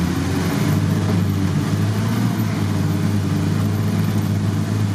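Engine and drivetrain of a UAZ off-road vehicle heard from inside its cab, driving at a steady pace: an unbroken low drone.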